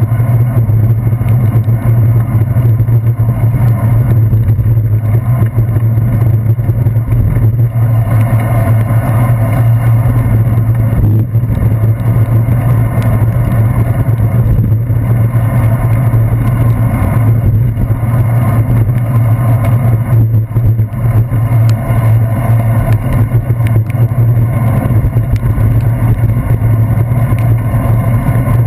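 Steady, muffled riding noise of a bicycle on wet city streets picked up through a handlebar-mounted GoPro Hero 2's sealed housing: wind and road vibration with a constant low hum, and car traffic around it.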